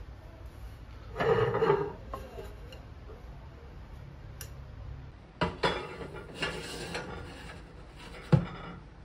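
Ceramic plates and bowls clinking and scraping as they are picked up and stacked onto a cabinet shelf. There is a longer clatter about a second in, a run of clinks around the middle, and a single sharp knock near the end as a plate is set down.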